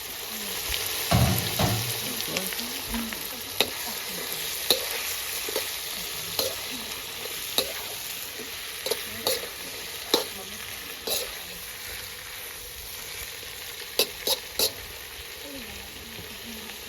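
Eggplant frying and sizzling with spices in a pan over a wood fire, stirred with a utensil that knocks and clicks against the pan at irregular moments: a louder knock about a second in and three quick clicks near the end.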